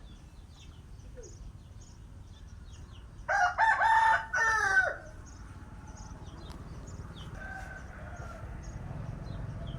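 A rooster crowing once, about three seconds in, with the call dropping in pitch at its end. Faint high chirps repeat about twice a second throughout.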